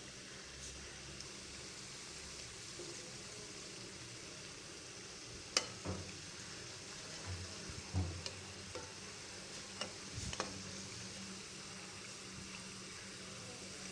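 Spinach-dough twisters deep-frying in hot oil: a steady sizzle, with a few sharp clicks in the middle stretch.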